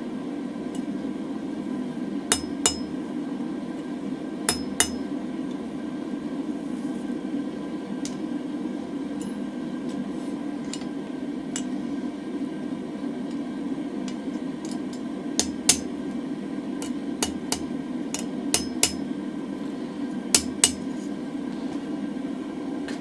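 Hammer striking a hot mild-steel bar on an anvil: sharp ringing blows, mostly in pairs, a few at first, then a pause of about ten seconds, then a run of about ten more, as the upset swelling is worked into the centre of the bar. A steady low hum runs underneath.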